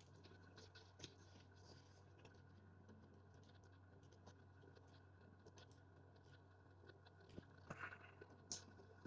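Near silence with faint small clicks and scratches of a screwdriver tip working the washer off a Daiwa Legalis spinning reel's pinion gear, with a short run of small clicks near the end.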